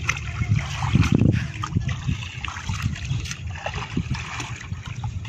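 Shallow, muddy brackish pond water splashing and sloshing irregularly as a hand scoop net is worked through it by someone wading, over a steady low wind rumble on the microphone.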